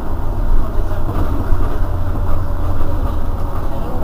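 Irisbus Citelis 12 city bus's rear-mounted engine idling while the bus stands still, a steady low hum.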